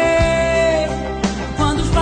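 Background music: a Portuguese-language pop ballad with a long held note that ends about a second in, over accompaniment with a slow steady beat.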